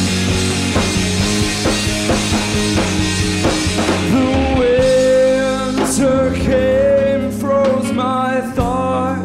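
Live rock band playing: drum kit, bass guitar and electric guitar. About four seconds in, the drumming thins and a long held melody line comes to the fore over the band.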